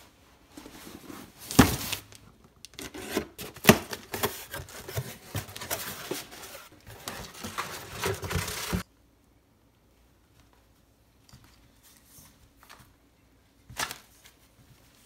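A cardboard box and its packing being handled and torn open to unpack an alternator: a dense run of crinkling, tearing and knocks. It cuts off abruptly about nine seconds in, leaving quiet handling with one sharp knock near the end.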